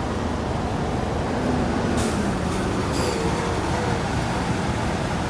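Heavy diesel dump trucks driving past slowly on a dirt road: a steady low engine rumble with a faint engine drone. Two short hisses come about two and three seconds in.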